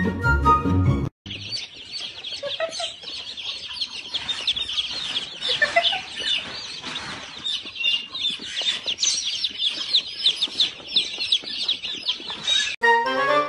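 A crowd of baby chicks peeping nonstop, many short, high cheeps that fall in pitch and overlap one another. Music plays for about the first second, and again briefly near the end.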